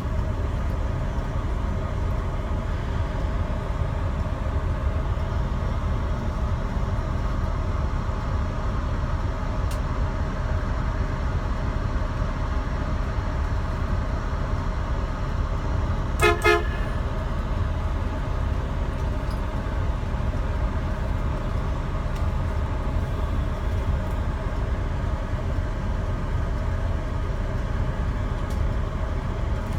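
Steady road and engine noise of a moving vehicle, with one short horn toot a little past halfway.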